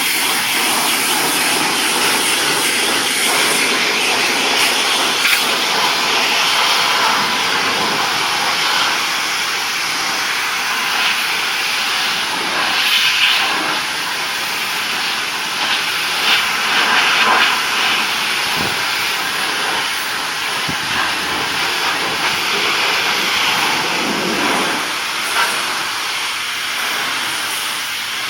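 Pressure washer spraying water onto a wooden deck, a steady hiss with small swells.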